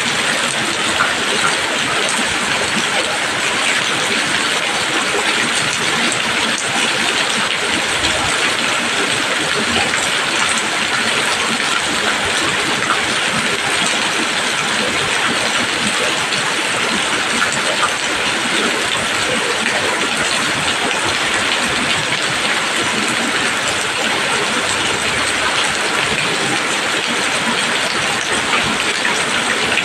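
Steady rain falling on leaves: an even, unbroken hiss of dense drops.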